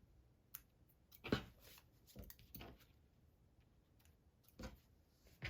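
Scissors snipping off loose threads from a freshly sewn cloth: a few faint, scattered snips with light fabric handling between them.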